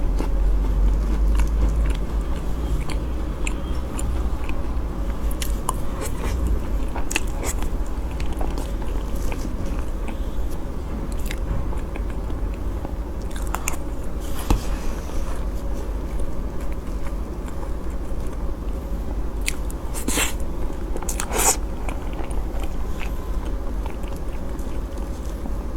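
Close-miked chewing and biting of soft cream cake, with wet mouth sounds and scattered small clicks; two sharper clicks come about twenty seconds in.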